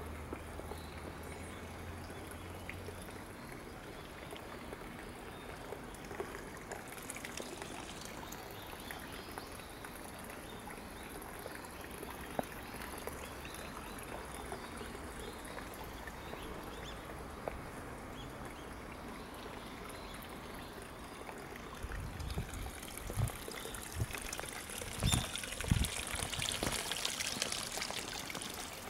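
Water trickling and pouring steadily from a bamboo spout into a small stone pool. It grows louder and brighter in the last few seconds, with a few low thumps near the end.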